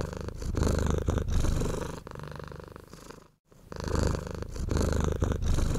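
A domestic cat purring close up, a low, finely pulsing purr that swells and fades with each breath. It breaks off briefly about three and a half seconds in and starts again.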